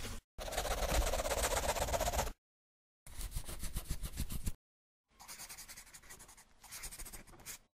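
Pen-on-paper scribbling sound effect in three separate stretches, each starting and stopping abruptly with dead silence between them.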